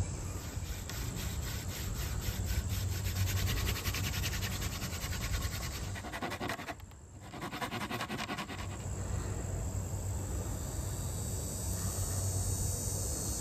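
Rapid rasping strokes of a blade cutting a notch into a pine fireboard, stopping about two-thirds of the way through. Crickets chirp steadily throughout.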